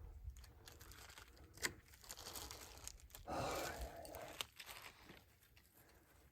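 Tape being peeled off a drum shell coated in wet fibreglass resin: a few light clicks and crackles, with one longer tearing rip about three seconds in.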